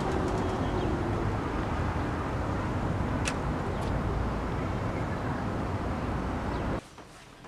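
Steady outdoor background noise with a heavy low rumble, cutting off suddenly near the end. Two short, high clicks or chirps come about halfway through.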